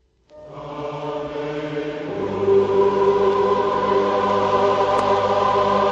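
Slow background music of long held choir-like chords, fading in just after the start and swelling louder about two seconds in as the bass note shifts.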